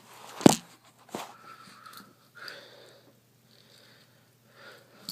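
Handling sounds of a Victorinox Swiss Army knife: a sharp click about half a second in, a fainter click about a second later, then soft rustling and taps.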